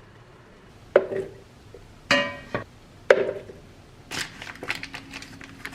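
Kitchenware being handled during food prep: three separate knocks about a second apart, the middle one ringing briefly like a clink of glass or ceramic, then a quick run of small clatters.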